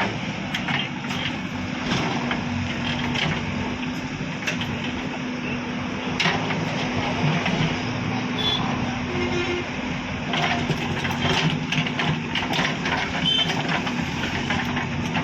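JCB backhoe loader's diesel engine running steadily, with scattered short knocks and clatter.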